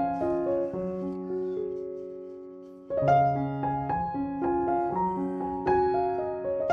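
Background piano music: a phrase dies away on a held chord, and a new phrase starts about three seconds in.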